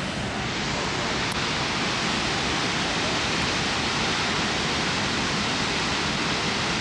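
Steady, unbroken rush of a large waterfall, Shoshone Falls on the Snake River, falling water heard close to the drop.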